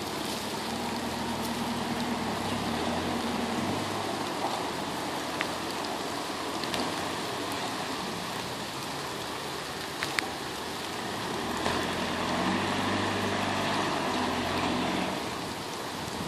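An off-road 4x4's engine working as it drives up a muddy track, its note heard in two spells, the second from about twelve seconds in, under a steady hiss of rain.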